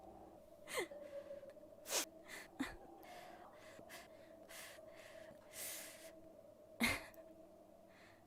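A man breathing close to a microphone: several sharp quick intakes of breath, some with a brief falling catch of voice, between softer breathy exhales. The loudest gasp comes about seven seconds in, over a faint steady hum.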